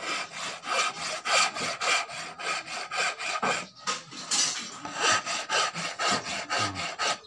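A flat steel tool scraped in quick repeated strokes, about three to four a second, along the torch-scorched surface of a wooden airgun buttstock. The scorching has roughened the wood, so the charred layer rasps off easily.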